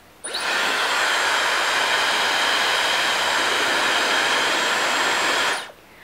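Dyson Supersonic hair dryer running at full blast: a steady, loud airflow noise with a high-pitched whine over it. It switches on just after the start and cuts off shortly before the end.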